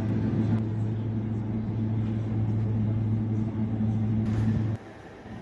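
A steady low electrical hum that cuts off abruptly near the end.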